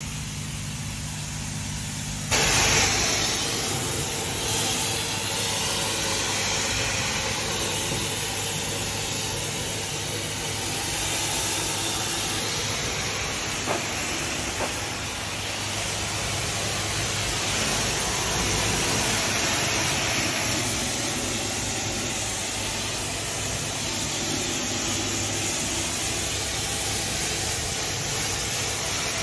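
Pressure washer wand spraying a high-pressure jet of water against the side and wheels of an enclosed cargo trailer: a steady, loud hiss of spray that starts about two seconds in, over a steady low hum.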